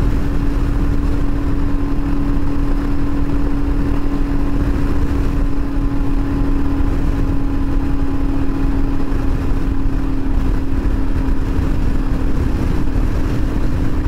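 Royal Enfield Himalayan's single-cylinder engine running steadily at full throttle while climbing a hill at highway speed, under heavy load and just holding about 60 mph. Wind and road rumble run underneath the engine's even drone.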